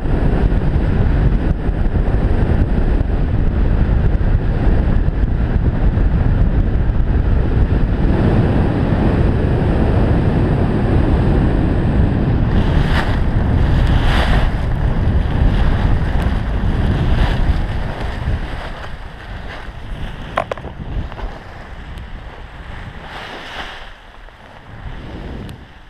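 Wind buffeting the camera microphone during a fast speedflying descent on skis, then several short hisses of skis scraping over snow. The wind noise drops away in the last third as the skier slows to a stop.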